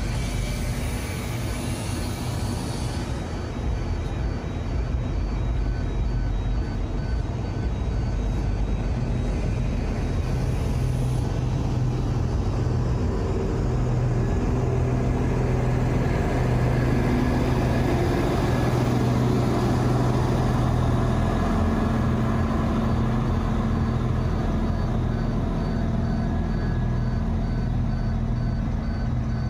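Queensland Rail tilt train passing slowly through the station, its motors giving a steady low hum over the rumble of wheels on rail. The hum grows louder and rises a little in pitch about halfway through, with a faint electronic beep repeating about twice a second behind it.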